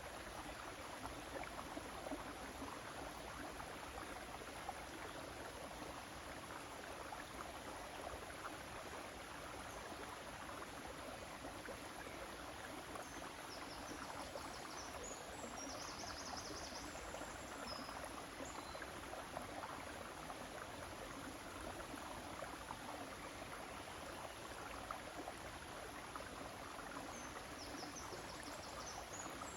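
River water flowing steadily, a constant rushing babble. Faint high chirps come in about halfway through and again near the end.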